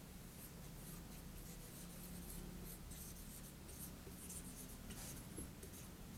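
Marker pen writing on a whiteboard: faint, quick scratchy strokes as a word is written, over a low steady hum.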